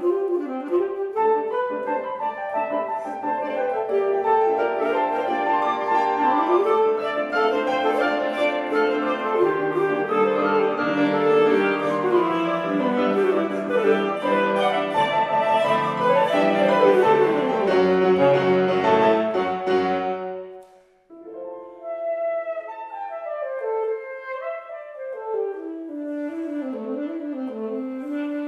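Saxophone and grand piano playing a fast, busy classical passage together. About 20 seconds in the music breaks off suddenly, then carries on quieter and sparser.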